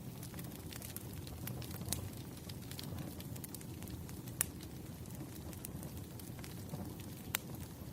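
Firewood burning with a steady low rumble and scattered crackles and pops; the sharpest snaps come about two, four and a half, and seven and a half seconds in.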